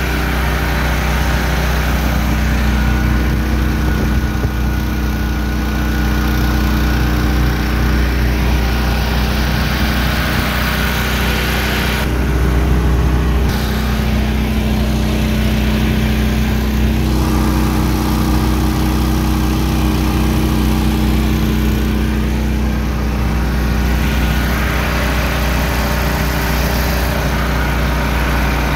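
A motorboat's engine running steadily while the boat is under way, a loud, even drone.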